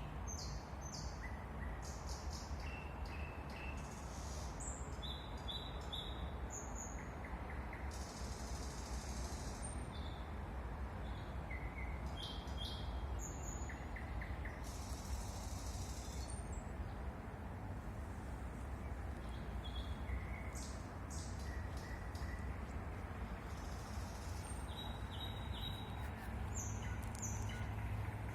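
Several songbirds chirping and whistling in short phrases throughout, over a steady low city rumble.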